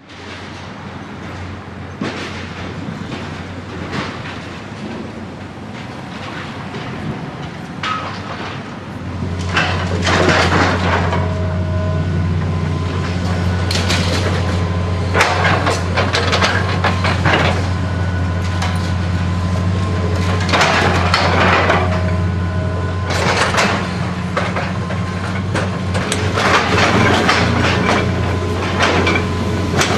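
Heavy demolition machinery running steadily, its engine working harder from about nine seconds in, with repeated bursts of crunching and clattering as building material is broken and falls.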